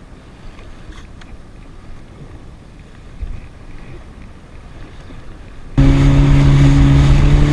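Soft wind and choppy water while the jet ski drifts, then, about six seconds in, a Yamaha WaveRunner jet ski running at a steady speed starts suddenly and loudly: an even engine hum with water rushing and spraying off the hull.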